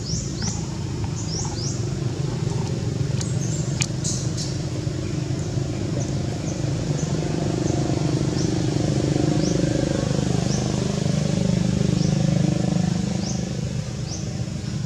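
Outdoor background: a low engine rumble that grows louder past the middle and eases off near the end, with a bird repeating a short, high, rising chirp every half second to a second. A few sharp clicks come about three to four seconds in.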